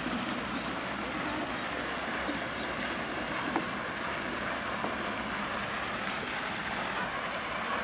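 Steady rushing splash of a pond fountain's water jet, with one light knock about three and a half seconds in.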